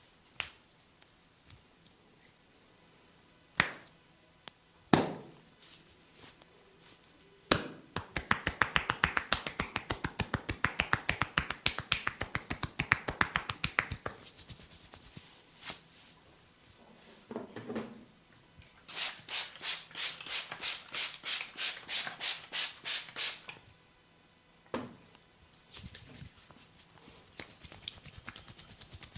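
Hand sounds of an Indian barber's head massage. A few single sharp slaps come first, then a fast run of rapid hand strikes on the head for about six seconds. Later comes a steady run of scratching, rubbing strokes through the hair, about four a second.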